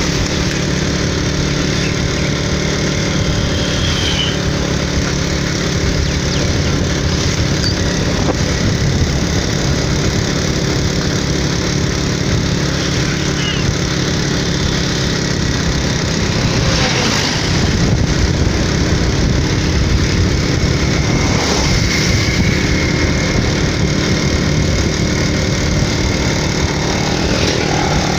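Motorcycle engine running steadily while cruising, heard from the rider's seat with wind and road noise. Passing traffic briefly louder twice in the latter half.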